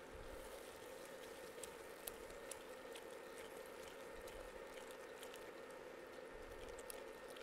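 Faint stirring of a thick tomato sauce with a wooden spoon in a pot, with a few soft ticks, over a steady low hum.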